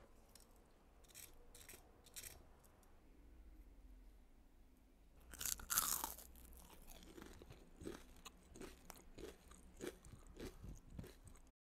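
Someone biting into a crispy breaded onion ring: a few light crackles, then one loud crunch about five seconds in, followed by steady crunchy chewing, a few crunches a second.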